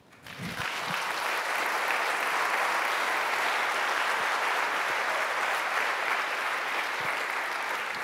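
Audience applauding. It starts from near quiet and builds within the first second, then holds steady.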